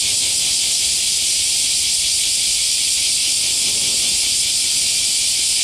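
A chorus of cicadas giving a loud, steady, high-pitched drone with no breaks.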